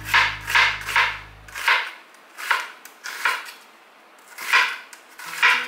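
Chef's knife chopping vegetables on a cutting board. A quick run of cuts comes in the first second and a half, then single cuts or pairs about a second apart.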